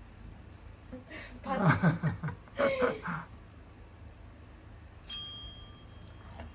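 A short burst of human laughter about a second in, then a single ding of a small push-button desk call bell about five seconds in, its clear ring fading away over a second or so.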